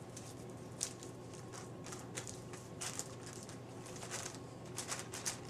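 Hands massaging wet plaster of Paris bandage onto a foot cast: faint, irregular wet squishing and smoothing noises over a low steady hum.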